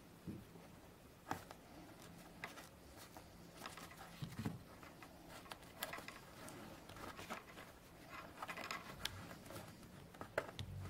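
Faint handling noise: scattered small clicks and rustles of fingers working a piece of textile tape onto the wooden stretcher frame of a canvas.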